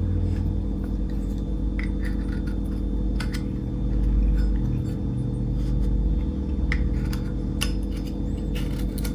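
A 1989 Zippo lighter being handled: scattered sharp metallic clicks and ticks of its lid and freshly replaced cam, over a steady low hum.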